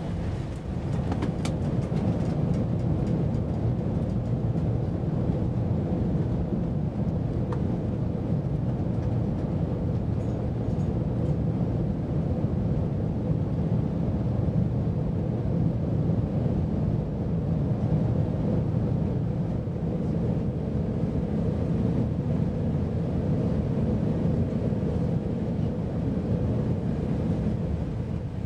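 Steady low rumble and hum inside the cabin of an Airbus A380 rolling out on the runway after landing, with a few rattling clicks and a swell in loudness about a second in.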